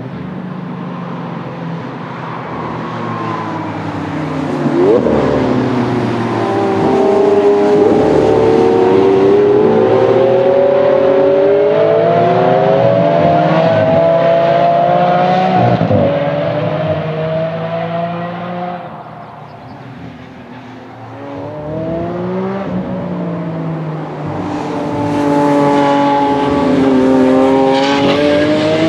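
Lamborghini Aventador V12 engines accelerating hard on track, the engine note climbing in pitch as a car pulls through the revs and passes. The sound drops away about two-thirds through, then another car comes up loud near the end.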